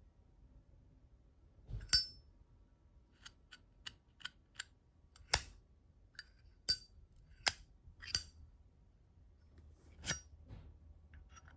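Zippo lighter clicking and clinking as it is handled: about ten sharp metallic clicks, each with a short ring, at uneven intervals, typical of the hinged lid snapping open and shut.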